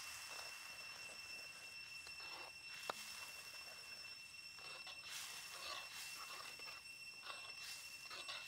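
Faint swishing and scraping of a metal ladle stirring thin curry sauce in a steel wok, with one sharp clink of ladle on wok about three seconds in. Underneath is a steady high-pitched drone of insects.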